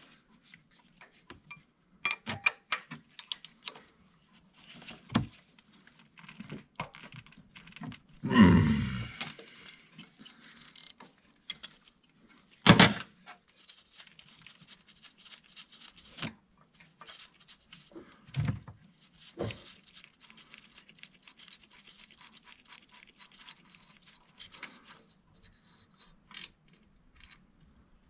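Hand tools clinking and knocking on metal as a wrench holds the camshaft and a socket takes the cam phaser bolts off a GM 3.6L V6. There is a short grunt of effort about eight seconds in, and sharp metal knocks about 13 and 18 seconds in.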